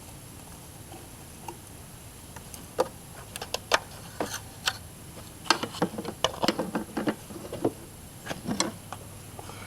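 Irregular sharp clicks and knocks of a plastic motor-oil bottle being handled and opened, clustered from about three seconds in until near the end.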